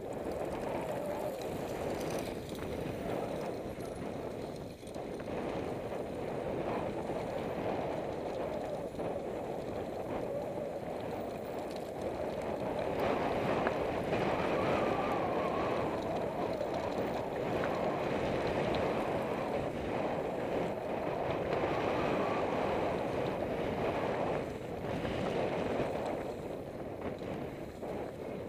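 Mountain bike riding downhill on a rough dirt trail: steady wind rush over the bike-mounted microphone mixed with the tyres rolling and rumbling over the ground, with occasional small clicks and rattles from the bike.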